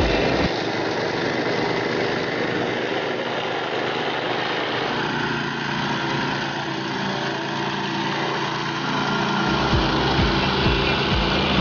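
Petrol engine of a Grillo CL 62M walk-behind brush mower running steadily as the machine cuts through tall weeds and undergrowth.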